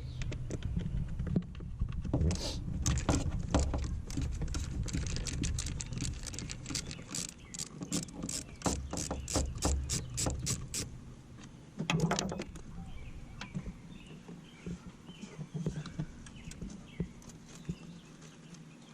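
A fast run of sharp clicks and rattles from working screws out of a car's dashboard trim panel with a Torx driver, lasting several seconds. A single knock follows, then quieter scattered handling of tools and plastic trim.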